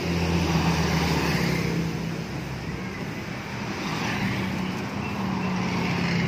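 Steady low hum of a running engine, with traffic noise behind it.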